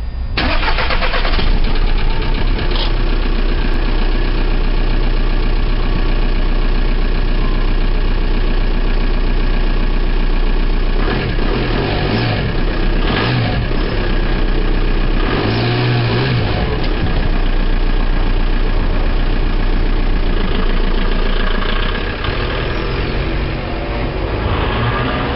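Volkswagen Jetta TDI's 1.9-litre ALH four-cylinder turbodiesel cold-starting about half a second in, then idling steadily. It becomes somewhat quieter near the end.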